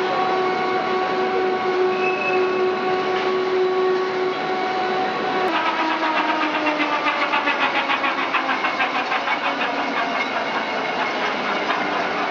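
Cold-rolling wire production line running, a steady machine whine with several held tones. About five and a half seconds in the sound changes: the tones slide slowly lower and a fast, even pulsing sets in.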